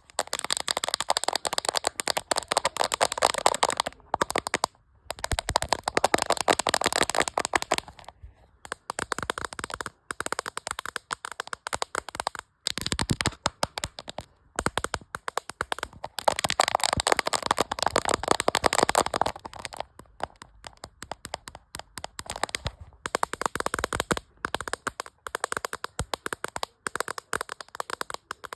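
Fingers tapping fast and aggressively on a camera, in rapid runs of sharp clicks with brief pauses between them.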